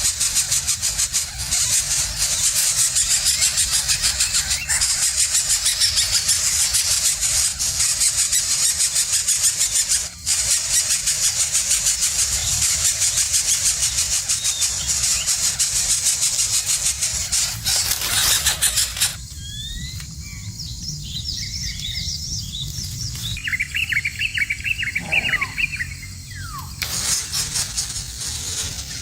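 A loud, dense, high buzz with a rapid pulse runs for most of the stretch. About two-thirds of the way through it stops for several seconds, leaving a run of high chirping bird calls that fall in pitch, and near the end the buzz comes back.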